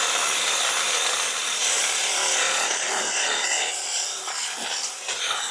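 Stihl battery mini pruning chainsaw cutting through branches, the chain rasping steadily through the wood. It starts suddenly and keeps running.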